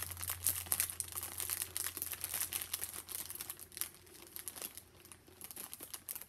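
Bags and packaging crinkling and rustling as they are handled, in quick irregular crackles that thin out after about four seconds.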